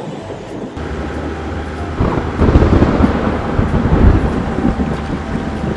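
Truck engine sound effect running with a low steady hum, joined by a louder, rougher rumble for a few seconds in the middle.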